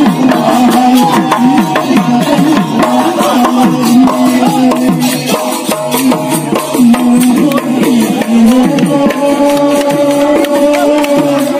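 Live Bihu music: dhol drums beaten in quick strokes under voices singing a Bihu song, with a long held note near the end.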